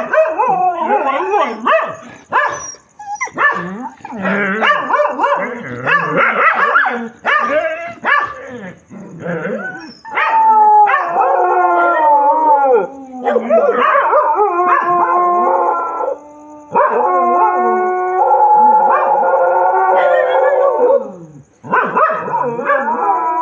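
Several dogs barking and yelping, then from about ten seconds in howling in long drawn-out wails, several voices overlapping.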